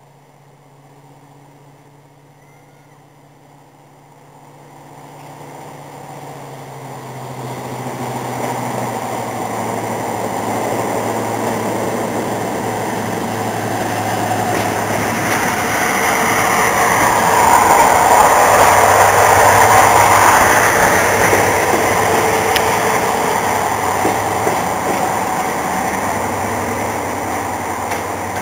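Class 55 Deltic diesel locomotive 55009 'Alycidon', its two Napier Deltic two-stroke engines running as it moves along the platform line. It grows louder from about four seconds in, is loudest a little past halfway, then eases slightly, with a steady low drone underneath.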